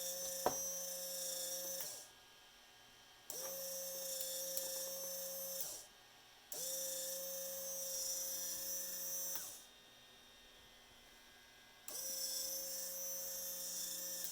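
Small electric servo motor whining as it runs in four spells of about two to three seconds, stopping briefly between each, as it is switched back and forth between clockwise and counterclockwise rotation. A sharp click comes about half a second in.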